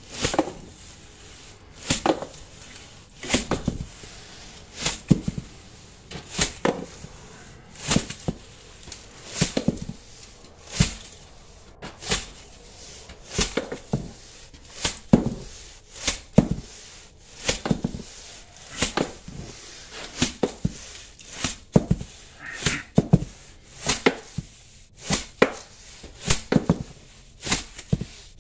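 Hand scraper chipping and scraping old debris and dust off a window sill, in repeated short strokes about once a second at an uneven pace.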